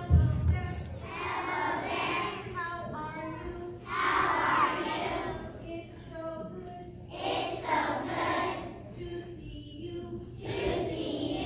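A group of kindergarten children singing together as a choir, in four short phrases with brief gaps between them.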